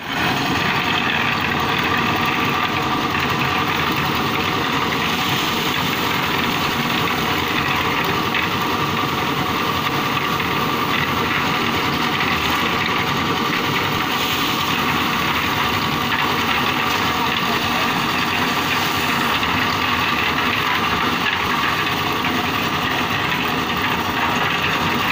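Small portable concrete mixer running steadily, its engine turning the drum as dried peas tumble inside in green dye.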